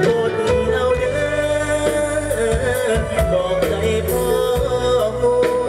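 A Thai Isan band playing live through a loud PA, with a singer over a steady drum beat, recorded from within the crowd.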